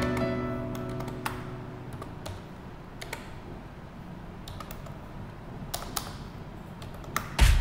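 A handful of sparse, irregular computer-keyboard keystrokes and clicks. Background music fades out at the start and comes back in loudly near the end.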